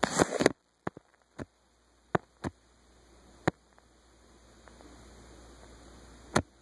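Handling noise from a recording device being moved: a brief rustling scrape at the start, then a scattering of separate sharp knocks and taps spread over several seconds, with a faint hum between them.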